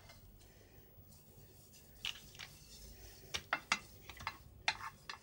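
Silicone pastry brush spreading oil in a glass baking dish: faint, scattered light taps and clicks of the brush against the glass, about eight of them from two seconds in.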